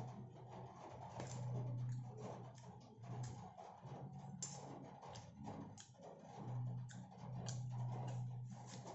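Close eating sounds: chewing and mouth clicks with a plastic fork tapping in a paper food box, and a paper burger wrapper rustling near the end. A low hum comes and goes underneath.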